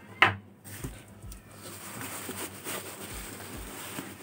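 Bubble wrap rustling and crinkling as hands pull it back and grip the amplifier board wrapped in it, after a short sharp sound a quarter second in.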